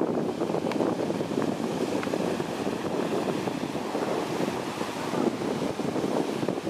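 Small surf breaking and its foam washing up and back over a sandy beach, a steady rushing wash of water, with wind noise on the microphone.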